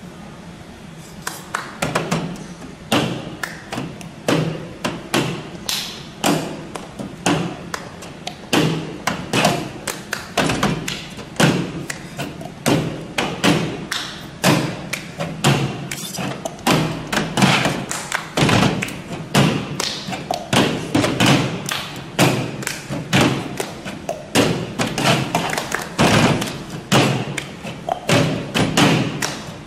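Cup-rhythm percussion by a group around a table: cups thumped and tapped on the tabletop and hands clapping in time, in a steady rhythmic pattern. It starts sparse about a second in and fills out into a dense groove.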